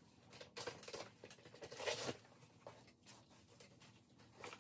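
Cardboard shipping box being opened by hand: faint, irregular scratches, tearing and rustles as the tape on top is cut and pulled and the flaps are worked loose.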